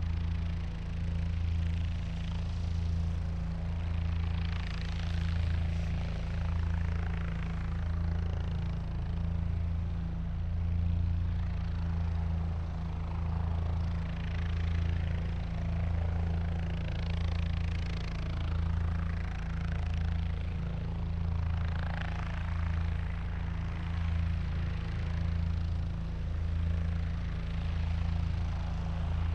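Helicopter engine and main rotor running steadily: a deep, even hum with a slow regular pulsing and a rushing hiss above it.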